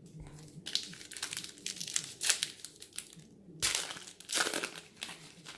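Crinkling of a plastic trading-card pack wrapper being handled, a run of quick irregular rustles that breaks off briefly about three and a half seconds in, then starts again.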